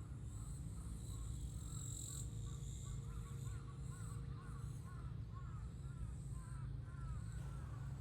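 A bird calling in a quick series of short, rising-and-falling notes that build up from about three seconds in and stop near the end, over a steady low rumble.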